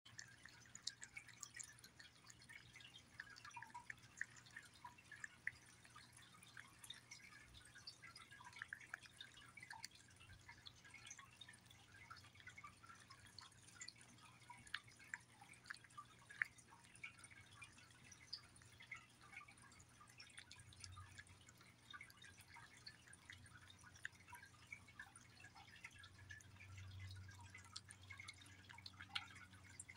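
Domestic cat eating wet food in gravy from a bowl: quiet, irregular wet clicks and smacks of chewing and licking, several a second.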